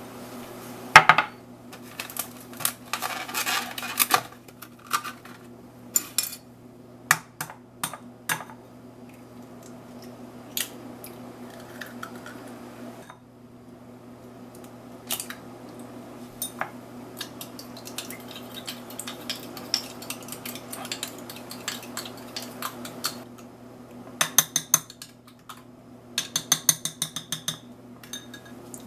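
Hard objects clinking and clattering in scattered knocks, with a quick run of evenly spaced clicks near the end, over a steady low hum.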